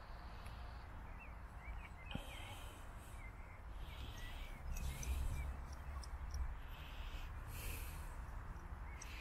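Outdoor field ambience: wind rumbling on the microphone, small birds chirping here and there, and a few short bursts of rustling.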